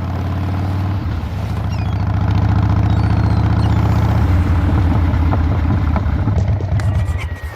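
Harley-Davidson V-twin motorcycle engine running at low revs, then switched off near the end, the engine sound cutting out suddenly.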